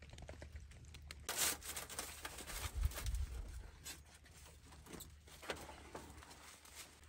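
Plastic stretch film rustling and crinkling, with a louder crackling burst about a second and a half in and scattered clicks after, as a metal stove pipe is worked up against and through the film.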